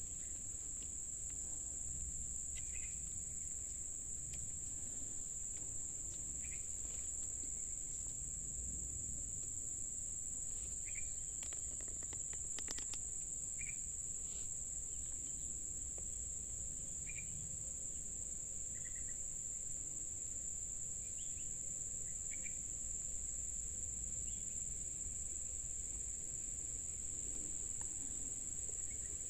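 Steady, unbroken high-pitched drone of insects, with short faint chirps every few seconds.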